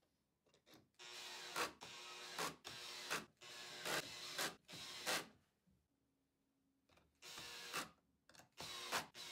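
Cordless drill-driver driving screws through an aluminium linear-bearing block into the wooden base: a string of short motor runs in quick succession, a pause of about two seconds after the middle, then two more runs.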